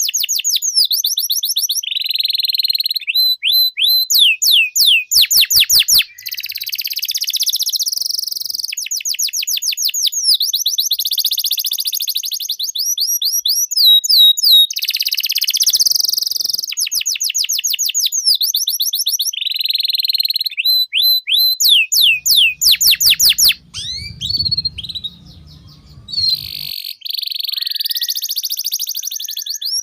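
Domestic canary singing a long, unbroken song of fast repeated trills and buzzy rolls, switching from one phrase to the next every second or two. It breaks off briefly a little after two-thirds of the way through, leaving a low hum, then resumes.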